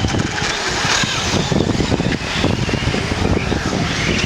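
Remote-controlled race cars running, their motors whining up and down in pitch.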